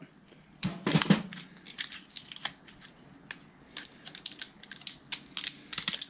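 Hand cutters snapping and crunching through an inverter microwave's circuit board to free the extruded aluminium, heard as a string of irregular sharp cracks and clicks. They are loudest about a second in and again near the end.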